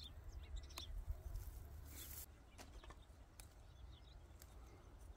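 Faint bird chirps over a low steady wind rumble, with a few soft ticks and rustles of plants being picked by hand.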